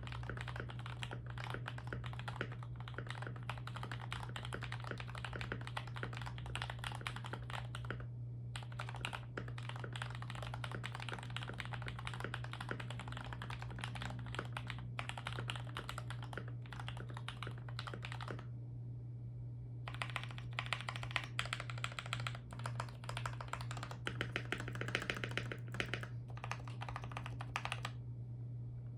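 Fast typing on an Akko MonsGeek MG75 mechanical keyboard with lubed Gateron Milky Red Pro linear switches and PBTfans Cherry-profile PBT keycaps, tape-modded, giving a deep, thocky keystroke sound. About two-thirds of the way through the typing stops briefly, then the larger stabilized keys are pressed one at a time as a stabilizer test. A steady low hum runs underneath.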